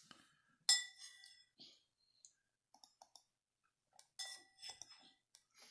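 Metal spoon clinking against a ceramic soup bowl as a child spoons up soup: a sharp ringing clink about a second in and another cluster of clinks about four seconds in, with faint small clicks between.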